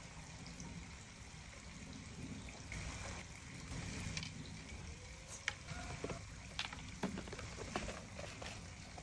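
Fishing rod and reel being handled: scattered small clicks and taps, more of them in the second half, over a steady low background hiss.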